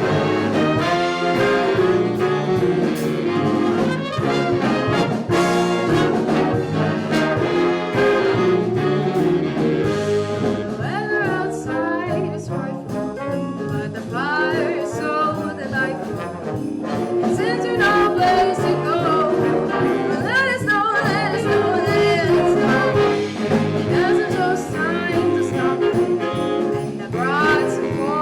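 A school band playing holiday music with brass to the fore, trumpets and trombones in a jazz style.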